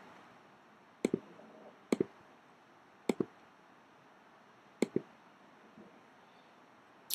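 Computer mouse clicking five times, each click a quick double tick of the button pressing and releasing, spaced about a second or two apart, over faint hiss.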